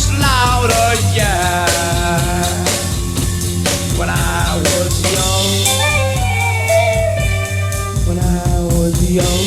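Instrumental break of a 1960s psychedelic rock song: a lead line sliding and bending in pitch, in the song's Indian-style riff, over bass and a drum kit.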